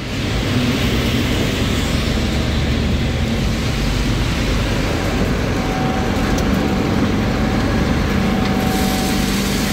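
Industrial machinery in an alfalfa cleaning and processing plant running steadily: a loud continuous rumble with a low hum, swelling in the first half-second, with a thin steady whine joining about halfway through.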